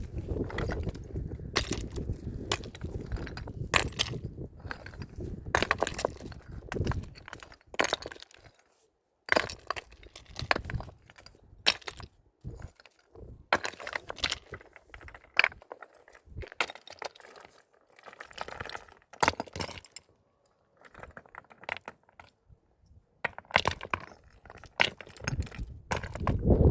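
Stones knocking and clinking against each other as they are handled, in irregular sharp clacks with short silent gaps. A low rumble of wind on the microphone runs under the first several seconds.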